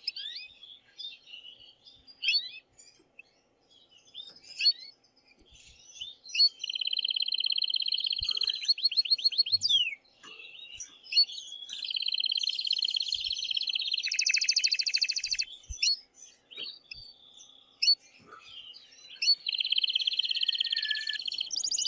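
Male canary singing: long, rapid rolling trills broken up by short chirps. This is the courtship song of a male in breeding excitement, sung to stimulate a hen to mate.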